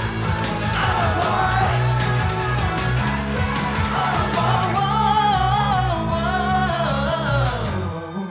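Upbeat funk-pop song with male group vocal harmonies over funky guitar and bass; the music stops suddenly near the end.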